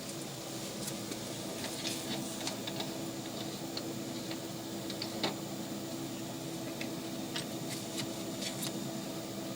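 Steady low mechanical hum, several held tones with no change in pitch, with scattered light clicks and ticks over it and one sharper click about halfway through.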